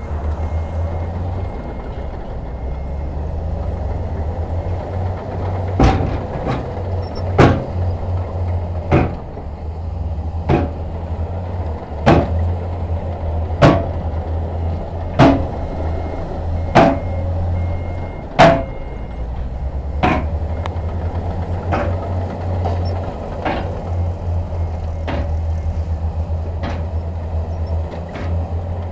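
Heavy earthmoving machinery's diesel engine running steadily, with a sharp metallic clank repeating about every second and a half from about six seconds in, growing fainter in the last third.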